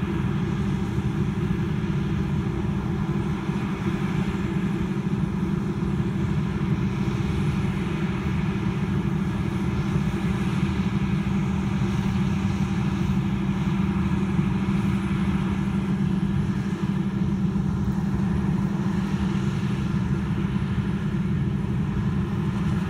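Heavy diesel farm machinery engine running steadily at a constant speed, a continuous drone with no change in pitch or level.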